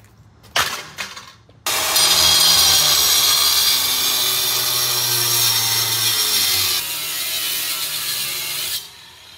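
Two sharp hammer blows on the ATM's sheet metal, then an angle grinder cutting into the ATM's steel cabinet for about seven seconds with a steady high grinding noise. The grinding eases slightly near the end and then stops.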